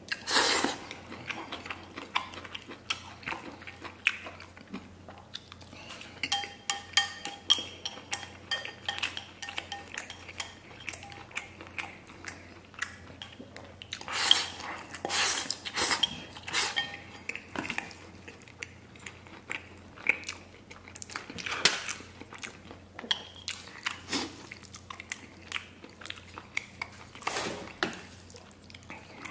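A man eating braised noodles from a porcelain bowl: loud slurps of noodles and chewing, with chopsticks clicking against the bowl. The loudest slurps come right at the start, around halfway through, and twice more later on.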